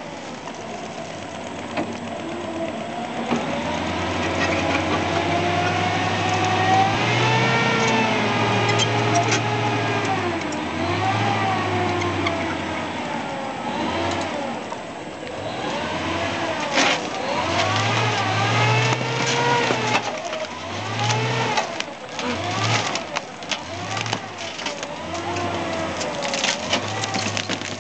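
Amtrac (amphibious assault vehicle) engine revving up and down as the vehicle drives. Through the second half come many sharp cracks and knocks, as of things being crushed under the vehicle.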